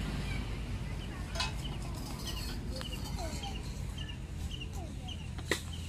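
Birds calling in short repeated chirps over a low steady hum, with a sharp knock near the end.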